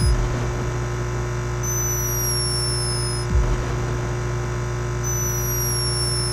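Sleeping hummingbird snoring: a thin, high-pitched whistle that falls slightly in pitch, lasts about a second and a half and comes back about every three and a half seconds, with a short low puff between whistles. Under it runs a steady electrical-sounding hum from the camera microphone's boosted sensitivity.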